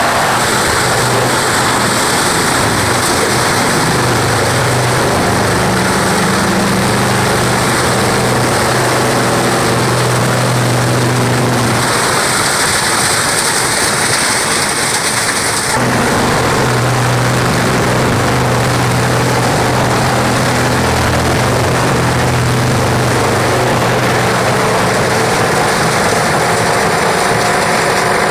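Large industrial wood chipper running, a steady low machine hum under dense noise. The sound shifts abruptly twice in the middle, between segments of the machine at work.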